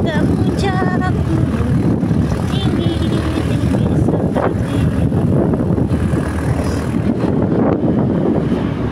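Motorcycle running steadily while riding along a road: engine noise mixed with road and wind rush.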